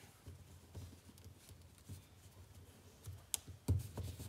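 A sheet of paper being folded and creased by hand against a tabletop: soft rustling and rubbing, with a sharp click a little over three seconds in and a dull thump just after.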